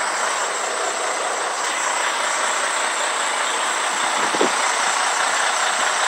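Steady running noise from a vehicle engine, even and unbroken throughout.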